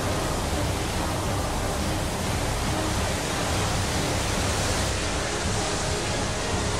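Floodwater rushing out of the Three Gorges Dam's spillway outlets in a torrent: a steady, dense rushing noise with no breaks.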